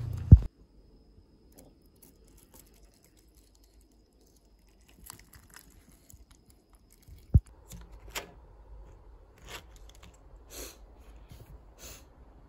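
Faint handling noises: scattered small clicks and crinkles of packaging, with a sharp low thump at the very start and another about seven seconds in.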